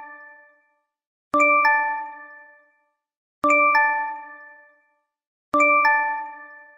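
The LINE messaging app's alert chime, repeating about every two seconds. Each repeat is a bell-like ding followed a third of a second later by a second note, both ringing and dying away before the next one.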